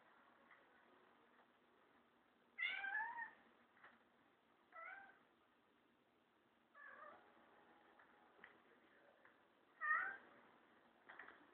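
Kurilian Bobtail cat meowing four times, a few seconds apart. The first, about two and a half seconds in, is the longest and loudest; the later ones are shorter.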